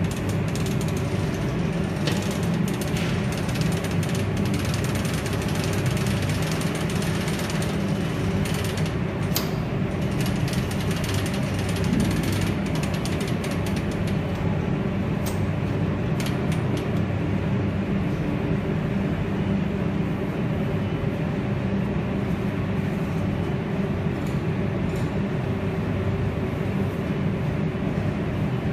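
Industrial machinery running steadily, a constant low hum with a rattle, with a few sharp metallic clicks now and then.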